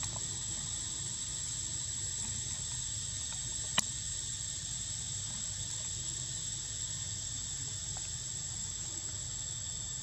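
Steady high-pitched drone of forest insects, over a low steady rumble. A single sharp click about four seconds in is the loudest moment.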